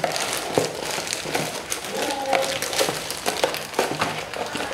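Crinkling of a plastic toy wrapper and handling of a cardboard Happy Meal box, a continuous crackle with many small clicks and taps.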